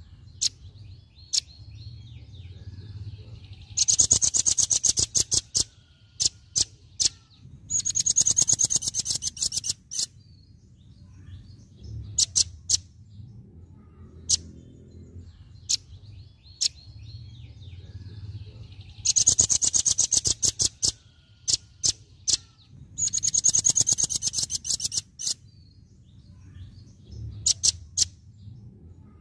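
Velvet-fronted nuthatch (red-billed nuthatch) giving its rapid-fire 'tembakan' call: four fast rattling trills of sharp high notes, each about two seconds long, with single sharp chips between them.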